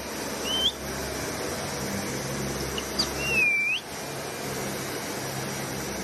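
A pet parrot whistling twice: a short rising whistle, then a few seconds later a longer whistle that dips and rises again, over a steady background hiss.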